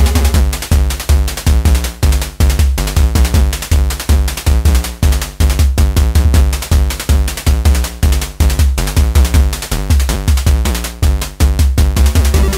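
Electronic background music with a steady drum-machine beat and strong bass.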